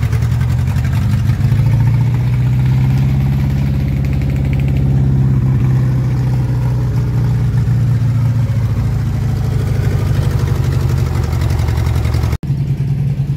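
Swapped-in Toyota Kijang/Corolla DX four-cylinder engine in a Mercedes-Benz 230 idling steadily, its revs rising slightly about a second in and then holding.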